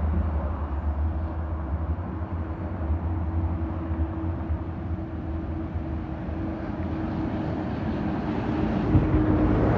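Street traffic going by: a car passes, then a diesel double-decker bus approaches and gets louder near the end, over a constant low rumble and a steady hum.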